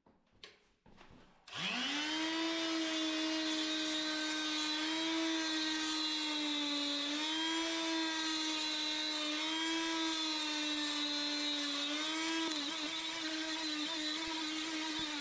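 Oscillating multitool fitted with a flexible scraper blade, switched on about a second and a half in and spinning up to a steady hum. The pitch dips slightly now and then as the blade scrapes carpet glue off a concrete step.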